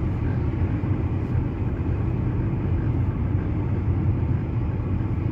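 Steady low rumble of a car driving along at road speed, engine and tyre noise heard from inside the cabin.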